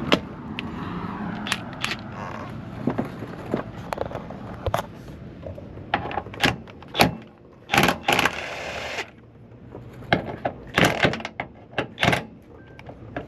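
Hand tools clinking and knocking on metal as bolts are worked loose under a car: irregular sharp clicks, some in quick clusters, with a few louder knocks.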